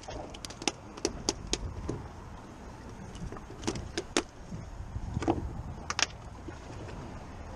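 Irregular sharp clicks and knocks of metal pliers, hook and a fiberglass deck hatch lid as a flounder is unhooked and stowed in the hatch, over a low steady rumble.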